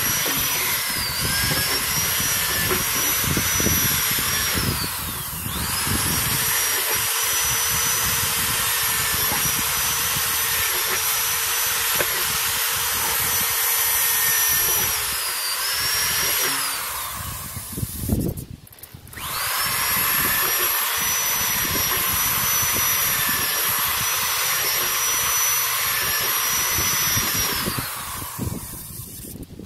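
Electric drill running in long stretches as it bores holes through a plastic water jug. Its whine dips now and then as the bit bites, it stops briefly about two-thirds of the way through, starts again, and stops near the end.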